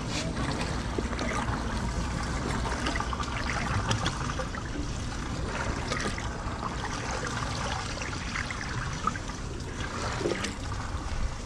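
Steady trickle of running water in an outdoor pool.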